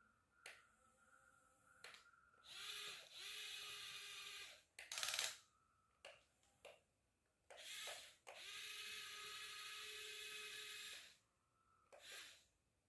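Small electric gear motors of a radio-controlled model run in spurts, each whirring steadily for one to three seconds, with pauses in between. A short, harsher burst about five seconds in is the loudest moment.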